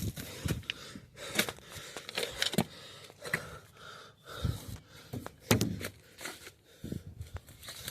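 A string of irregular thumps and clicks, roughly one or two a second, over faint background noise.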